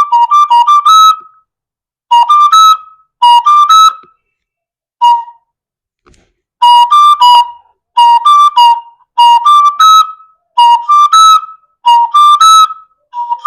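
Oja, an Igbo wooden flute, played in short phrases of quick notes that climb through two or three pitches to a higher held note. About seven phrases are separated by brief pauses, with one lone short note about five seconds in.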